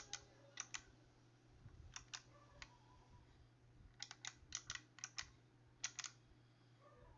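Footswitches on an Mvave Chocolate MIDI controller clicking faintly as they are pressed, mostly in quick pairs and clusters of clicks, over a faint steady low hum.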